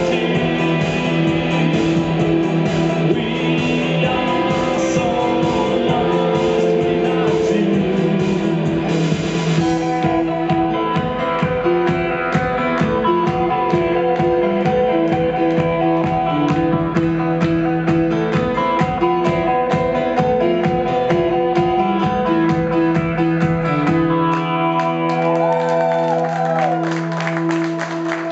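Rock band playing live: guitar and drums driving a steady beat under held chords. About 24 seconds in, the drums and bass drop away, leaving sustained ringing notes as the song winds down.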